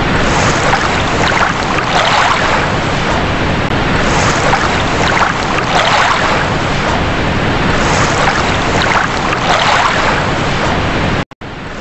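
Ocean surf: waves breaking and washing against a rocky shore, swelling every few seconds, breaking off abruptly near the end.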